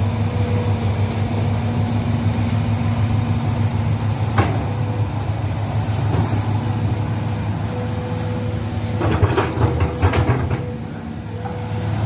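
Hitachi excavator's diesel engine running steadily, with a sharp knock about four seconds in and a burst of metallic clanking near the end, as the machine works.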